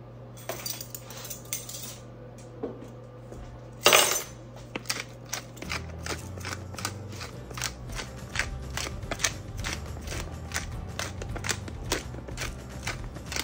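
Wooden spatula scraping and knocking in an enamelled Dutch oven of thick stew, with one sharp knock about four seconds in. From about six seconds in, a pepper grinder twisting with a steady run of crunchy clicks, three or four a second.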